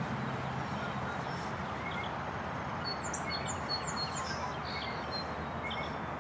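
Small birds chirping with short high notes, including a quick run of chirps about three seconds in, over a steady background hiss of outdoor noise.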